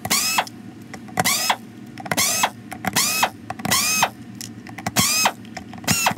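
Power drill/driver with a Torx T15 bit backing out small screws from a plastic Dyson DC33 cyclone housing: about seven short trigger pulls, roughly one a second. Each is a whine that rises quickly and then holds.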